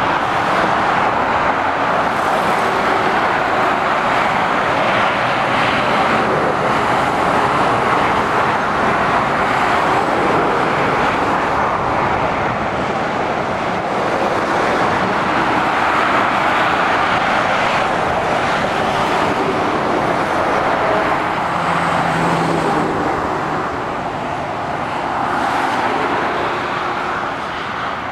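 Steady traffic noise of heavy lorries and cars passing on a dual carriageway: tyre noise and diesel engines, a little quieter in the last few seconds.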